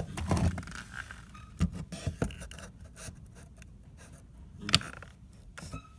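Wood being handled: boards scraping as they slide across one another and against the fence, with scattered knocks and clicks and one sharp knock near the end.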